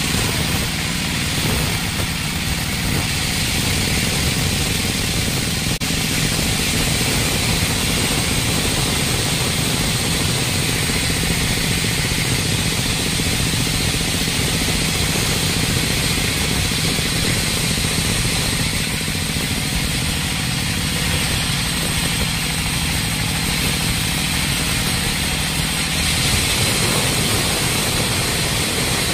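Band sawmill running and its vertical band blade cutting lengthwise through a large log. It makes a steady, loud mechanical hum and hiss with a high whine, and the low hum shifts about three seconds before the end.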